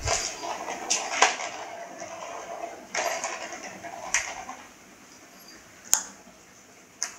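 Plastic ball rolling around the circular plastic track of a Catit Play 'n Scratch cat toy as a cat bats it, in two rattling runs with sharp knocks of ball and paw against the track, then a single sharp click near the end.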